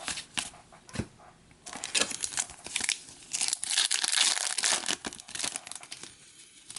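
Card pack wrapper being crinkled and torn open by hand, a run of crackling and rustling that is densest in the middle, with light clicks of cards being handled.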